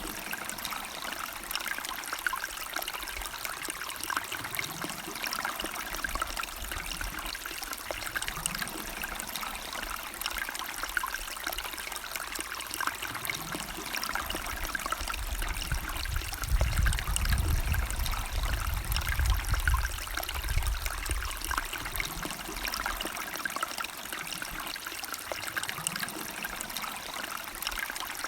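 River water flowing and trickling steadily, with a deeper low rumble swelling for several seconds past the middle.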